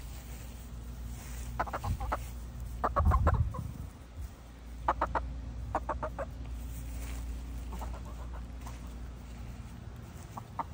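Chickens clucking in several short runs of quick clucks, spaced a second or two apart. A low rumble on the microphone swells about three seconds in.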